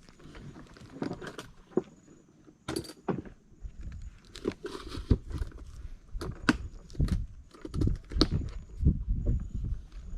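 Irregular knocks, clicks and rustling of handling in a small boat, with no regular rhythm.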